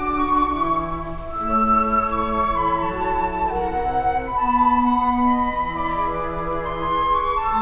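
Flute ensemble playing a slow piece live, several flutes holding long notes in harmony that change in overlapping steps, with a lower part underneath.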